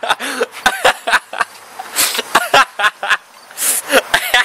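A man laughing loudly in short bursts, without words.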